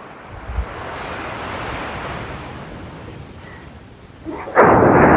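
Big Pacific surf: a wave washes in softly and fades, then about four and a half seconds in a much louder rush of breaking surf starts suddenly.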